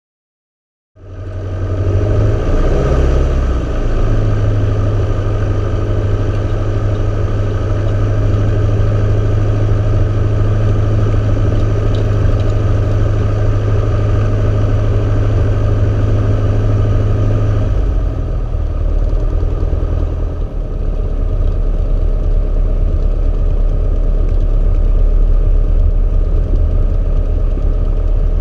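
Socata TB-9 Tampico's four-cylinder Lycoming piston engine and propeller running steadily at taxi power, heard from inside the cockpit. The sound cuts in abruptly about a second in, and the engine note deepens about two-thirds of the way through.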